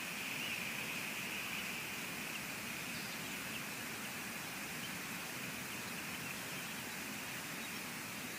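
Steady, even hiss of rain.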